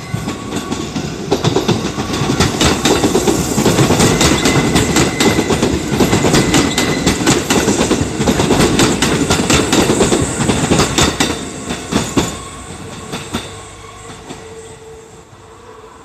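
Kintetsu 8810-series electric train passing close at a level crossing: a loud rumble with rapid clacking of wheels over the rail joints, which drops off sharply about twelve seconds in as the last car clears. The crossing's warning bell rings underneath.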